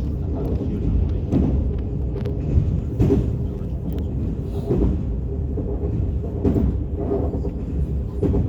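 KTX high-speed train running through the station: a loud, steady low rumble with occasional short knocks.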